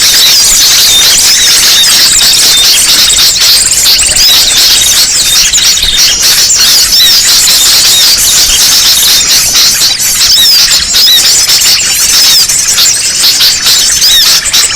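Noisy flock of many small birds chirping and twittering all at once, dense overlapping high chirps with no pause. It is a lure recording (suara pikat) played to draw small birds in for trapping.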